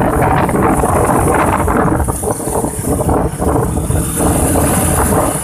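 Moving vehicle's engine and road noise: a loud, steady low rumble with a faint engine hum.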